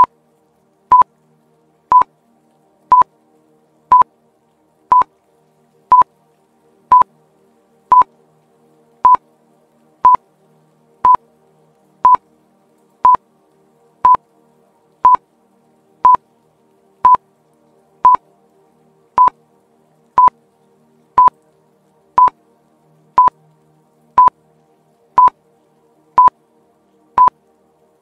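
Quiz countdown timer beeping: a short, high electronic beep once a second, evenly spaced, marking off each second of the answer countdown.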